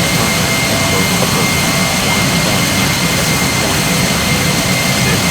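Jet airliner engines running with a steady roar and a thin, steady whine, holding constant throughout.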